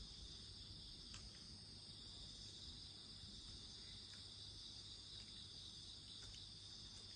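Faint, steady high-pitched chorus of crickets, with a few faint crackles from a wood campfire.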